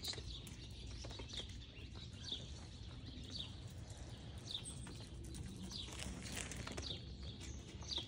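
A songbird calling: short falling chirps, repeated about once a second, over a steady low rumble.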